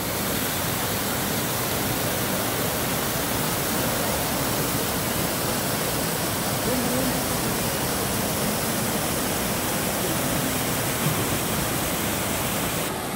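Artificial rock waterfall pouring into a pool: a steady, even rush of falling water.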